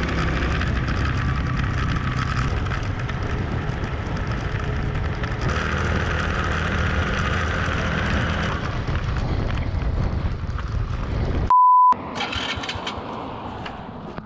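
Small motorcycle riding at road speed: a steady rumble of engine and wind noise. About 11.5 s in, a short, loud single-pitch electronic beep cuts in, and then the sound is quieter, with the bike stopped after suddenly stalling.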